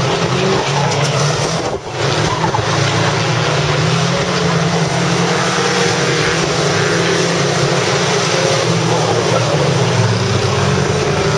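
Engines of a pack of banger racing cars running together as they race round the track: a steady, loud mix of engine noise with no single standout event.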